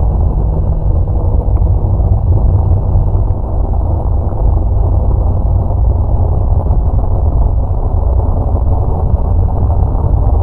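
A steady, loud, deep rumble with no breaks and a few faint steady tones within it.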